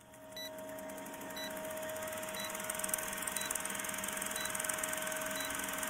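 A steady hum under a hiss that swells over the first seconds, with a short high beep repeating about once a second.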